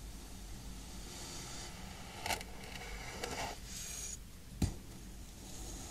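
Knife slicing through a packed block of kinetic sand close to the microphone: soft gritty scraping and crunching as the blade cuts and the slice crumbles, with one sharp tap late on.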